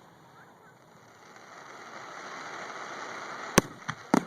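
Fireworks: a swell of noise builds for a couple of seconds, then three sharp bangs in quick succession near the end, the first the loudest.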